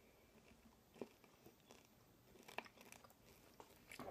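Faint chewing, with a few small sharp crunches about a second in and again near two and a half seconds: someone eating a snack.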